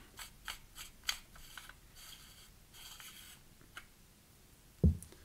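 Threaded metal pommel section of a lightsaber hilt being unscrewed by hand: a quick run of light scrapes and clicks from the threads, then soft rubbing. A single low thump near the end.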